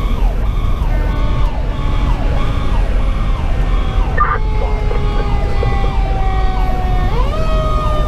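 Fire engine sirens heard from inside the cab over diesel engine and road rumble: an electronic siren cycling in quick repeated sweeps, while a Federal Q2B mechanical siren's tone slowly falls as it winds down, then spins back up sharply about seven seconds in.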